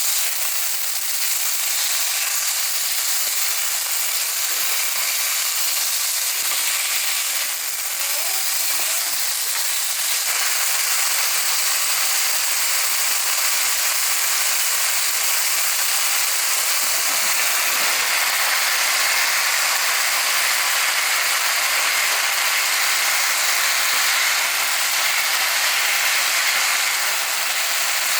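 Steady sizzling hiss of food frying in a hot pan.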